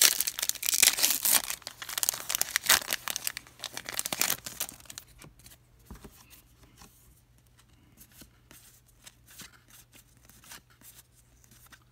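A foil trading-card pack wrapper being torn open and crinkled, a dense crackling that dies away about five seconds in. After that only faint rustles and clicks as the cards are handled.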